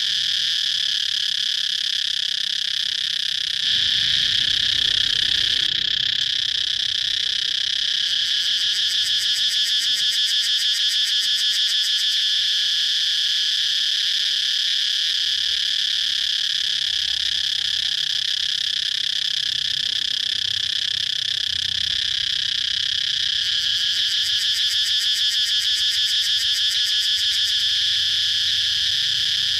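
Cicadas chirping in a steady, continuous chorus, with stretches of rapid pulsing about a third of the way in and again near the end.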